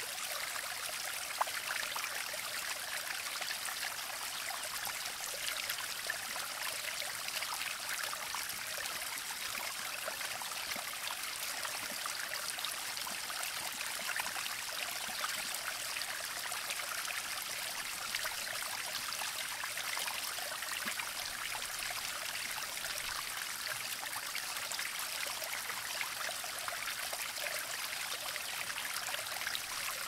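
Small natural spring-water trickle running steadily, a light, high splashing babble.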